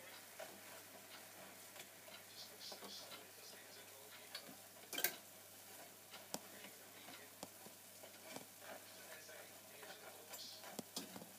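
Puff puff dough balls frying in oil in a small electric deep fryer: faint, scattered crackling of the hot oil, with light clicks of a fork turning them against the wire basket, and one sharper clack about five seconds in.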